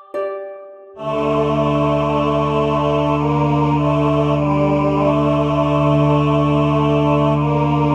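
Background music: after a brief break, sustained droning chords start about a second in and hold steady.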